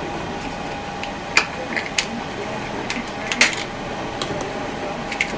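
Steady rain with irregular sharp taps of raindrops striking the window, a few in a handful of seconds, the loudest a little over a second in and about three and a half seconds in.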